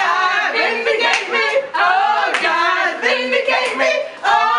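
Several young voices singing loudly together, with notes held steady between quick changes of pitch.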